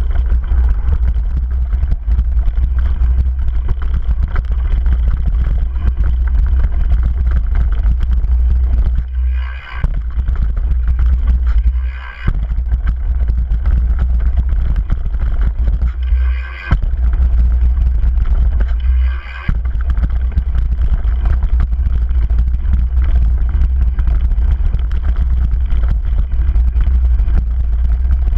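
Wind buffeting the camera microphone on a mountain bike descending a dirt and gravel downhill trail at speed, mixed with tyre noise and the rattle of the bike. The deep wind rumble eases briefly four times around the middle, letting a brighter rattle come through.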